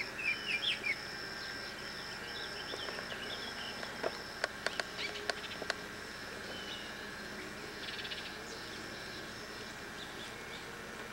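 Birds chirping, with a quick burst of calls in the first second and scattered calls after, over a steady, pulsing high insect trill. A few sharp clicks come about four to six seconds in.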